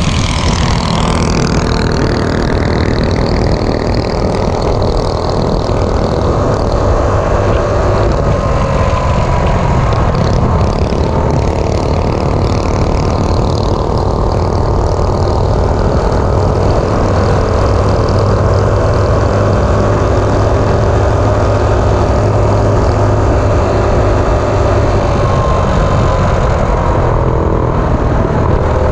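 Coleman CT200U minibike's single-cylinder engine with an RLV silencer, running steadily at road speed, with wind rushing over the microphone.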